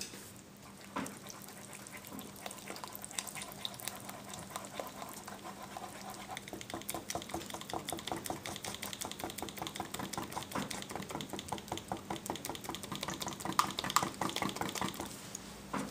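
A spatula stirring a wet mix of yellow dental stone and plaster in a flexible rubber mixing bowl. The strokes are quick and repeated, scraping and slapping through the slurry. They grow busier and louder a few seconds in.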